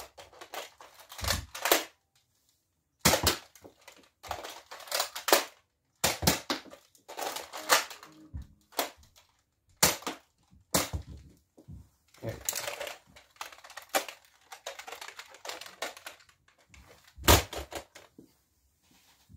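Two Nerf Elite Disruptor dart blasters being primed and fired over and over, giving sharp spring-plunger snaps and the clacks of the priming slides, in irregular clusters.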